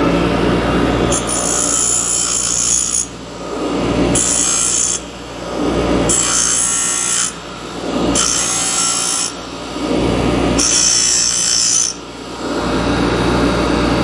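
Bench grinder running while a metal fuel filter canister is pressed against its wheel to grind the casing open. There are five passes, each a harsh grinding of metal on the wheel lasting one to two seconds, with the motor's steady hum between them.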